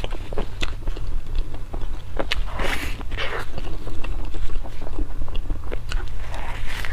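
Close-miked eating: wet chewing and biting of spicy seafood, with many sharp mouth clicks and smacks and a couple of longer slurping smears about two and a half to three and a half seconds in, over a steady low hum.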